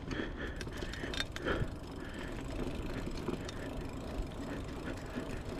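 Mountain bike rolling over a dirt trail: a steady low rumble from the tyres, with scattered clicks and rattles from the bike as it goes over bumps.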